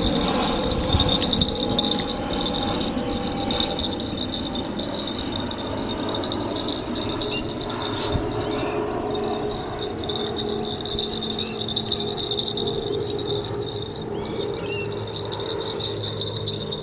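Crickets chirring steadily at a high pitch over a low rushing background noise.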